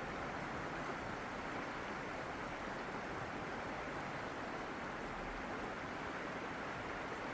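Steady, even rush of running water, with no swells or breaks.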